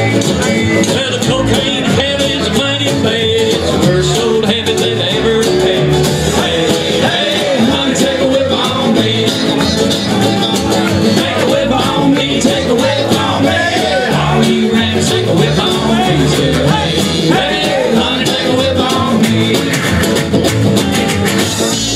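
A live string band playing an up-tempo number on banjo, strummed acoustic guitar and a washboard with a cymbal, at a loud, even level.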